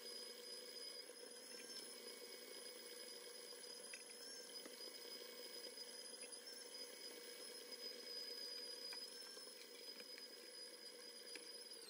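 KitchenAid Professional 600 stand mixer running with its flat beater, churning thick choux-style cruller dough as the eggs are beaten in. It is a faint, steady motor whine with a few light ticks.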